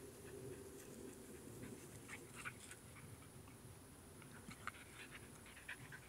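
Two Irish Glen of Imaal Terriers panting and scuffling at a hole they are digging in sandy earth. The sound is faint: short scratchy noises, bunched around the middle and again near the end.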